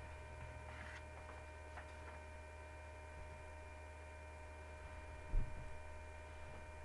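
Steady electrical mains hum with a few faint steady high tones above it, and a single low thump about five seconds in.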